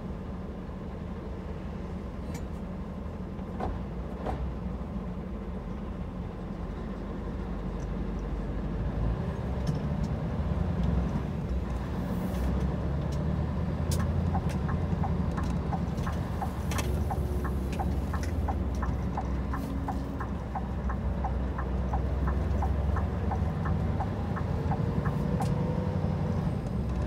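Scania R 730's V8 diesel engine heard from inside the cab, idling and then pulling away under load about nine seconds in, growing louder. From about fourteen seconds in, a steady ticking of roughly two to three ticks a second, typical of the turn-signal relay.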